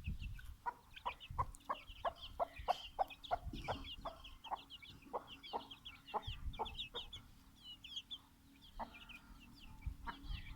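Chickens feeding: chicks cheep in high, short, falling peeps throughout, over a rapid run of short clucks from an older bird, about three a second, that stops about seven seconds in. Low thumps and rumble sit underneath.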